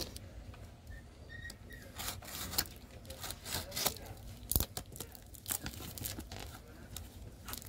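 Cardboard parcel wrapped in plastic packing tape being slit and torn open with a knife: irregular tearing and crinkling of tape and cardboard, with sharp scrapes and a knock about halfway through.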